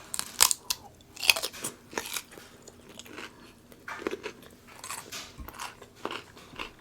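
Close-miked eating: crunching bites followed by irregular wet chewing and crackles. The two loudest crunches come about half a second and just over a second in.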